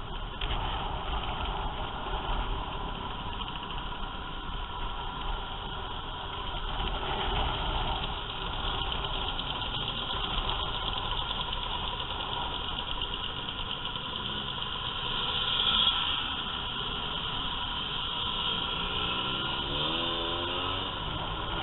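Motor scooters running in a group on the road, heard from a helmet-mounted camera: a steady engine and road noise. Near the end an engine's pitch rises and falls several times.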